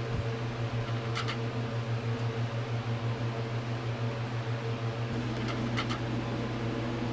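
Garage unit heater's fan running with a steady low hum that pulses slightly. A couple of faint clicks come from work on the engine.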